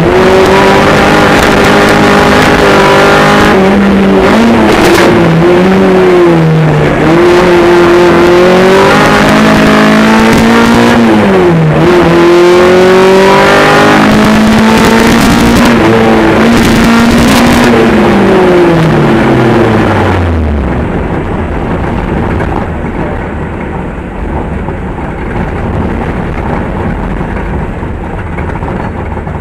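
A Jeep Cherokee's Honda K24 inline-four engine revving hard under racing load, its pitch dipping and climbing again several times as the throttle lifts and comes back on. About two-thirds of the way through, the engine note falls steadily away as the car slows, leaving a quieter low rumble.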